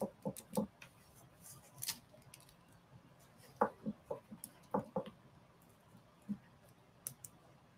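Light, irregular plastic clicks and taps as nail tips on clear display sticks knock against each other while they are handled, with a few louder clicks around the middle.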